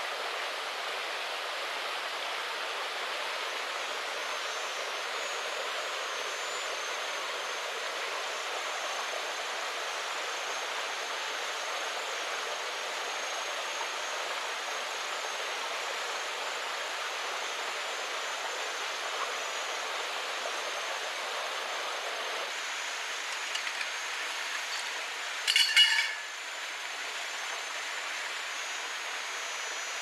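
Steady rushing of a nearby rocky forest stream, with thin high steady tones above it. About 26 seconds in there is a short metallic clatter.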